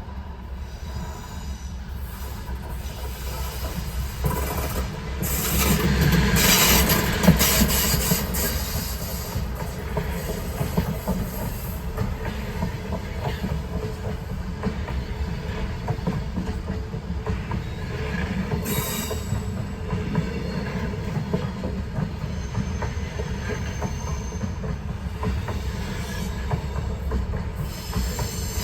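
Diesel-hauled freight train rolling past a level crossing. A continuous rumble of wheels on rail swells loudest several seconds in, with clacking over the rail joints. A thin, high wheel squeal comes later.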